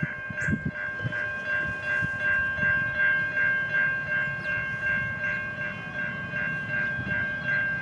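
A diesel-hauled passenger train passes with a low, uneven rumble and some wheel clatter. Over it, a steady high ringing tone pulses evenly about three times a second.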